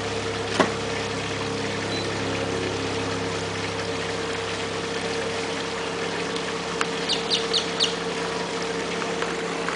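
An alligator's jaws snapping shut once, a sharp clack about half a second in, over a steady mechanical hum. A bird chirps four or five times in quick succession near the end.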